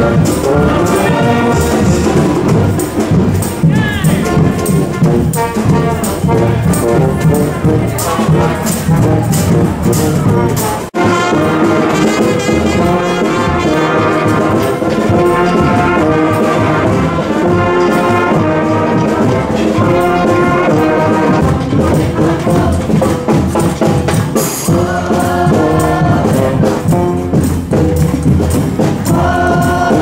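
Street brass band playing live: trombones, trumpets and saxophone over a steady beat of drums and percussion. The music breaks off for an instant about eleven seconds in and starts again at once.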